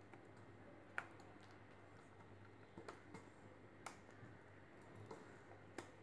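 Near silence broken by a handful of faint, sharp clicks and taps, the clearest about a second in, from a hand working bottle gourd slices through thick gram-flour batter in a steel bowl.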